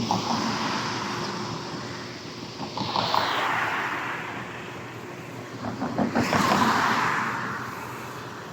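Road vehicles passing close by, each one a rushing swish that swells and fades. There are three in a row: one near the start, one about three seconds in, and the loudest about six seconds in.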